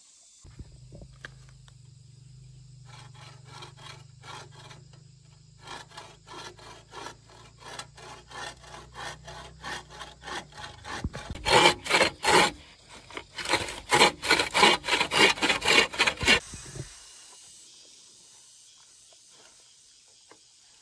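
Hand bow saw cutting a bamboo pole laid across a wooden block: a rhythmic back-and-forth rasp of saw strokes, about two to three a second. The strokes grow much louder and harsher about halfway through, then stop a few seconds before the end.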